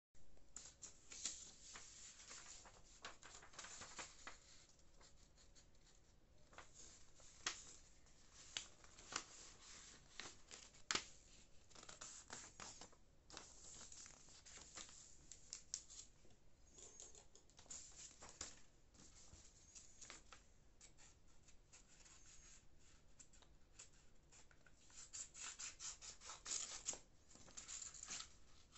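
A sheet of paper being handled and cut with scissors: faint rustling and scraping of the paper with sharp snips and clicks, in a quick run of snips near the end.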